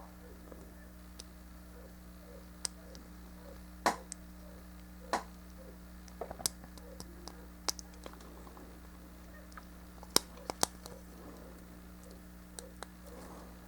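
Plastic model-kit parts being handled and pressed together onto their pegs: scattered sharp clicks and taps, a handful of them louder, over a steady low hum.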